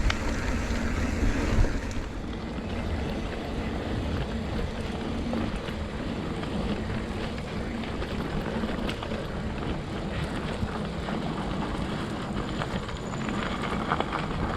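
Wind rushing over the microphone of a moving motorcycle, with a steady engine and road noise beneath it, a little louder in the first couple of seconds.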